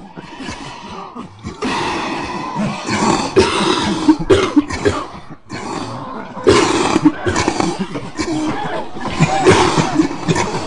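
People coughing over and over: many harsh coughs in quick succession, some close together or overlapping.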